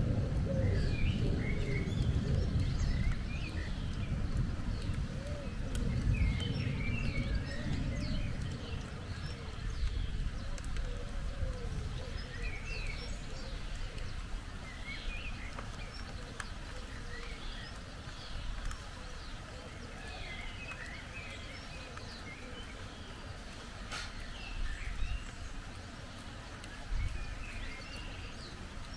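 A low rumble of thunder dying away over the first several seconds, with small birds chirping throughout.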